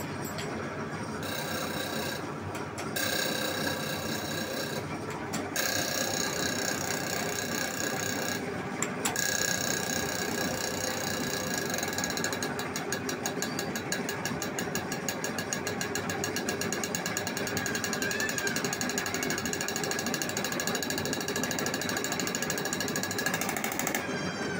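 Common-rail diesel injector test bench running: the motor-driven high-pressure pump gives a steady whine, which cuts out briefly three times in the first nine seconds. From about halfway, a rapid, even ticking joins in as a VW Polo diesel injector is fired on the bench, spraying into a collecting can.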